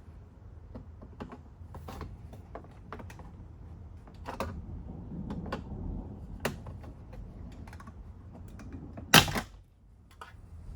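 Plastic door trim on a Chevy Express van being pried off: scattered clicks and creaks of clips and panel, then one loud sudden snap about nine seconds in as the piece comes free abruptly.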